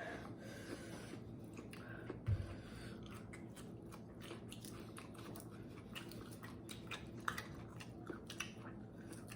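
A person chewing and eating close to the microphone, with many small irregular clicks and mouth noises. There is one low thump a little over two seconds in.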